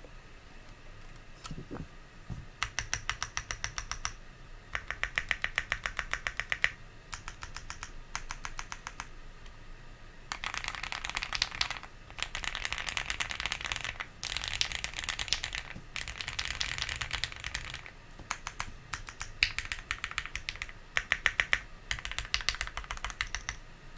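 Typing on an Owlabs Link65 mechanical keyboard with lubed Gateron CJ linear switches on an aluminium plate, fully foamed, with JTK Night Sakura keycaps. It starts with runs of evenly paced key presses, then about ten seconds in turns to fast, dense typing for several seconds before going back to shorter runs.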